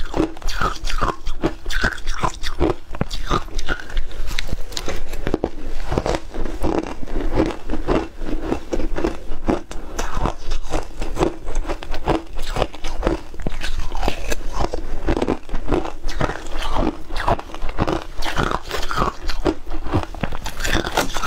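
Ice chunks being bitten and chewed, close to the microphone: a dense run of sharp, crackly crunches that goes on without a break.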